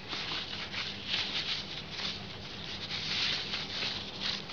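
A cloth rag wiping back and forth over a motorcycle's drilled front brake disc, a scratchy rubbing hiss that swells and fades with each uneven stroke, cleaning spilled hydraulic oil off the disc.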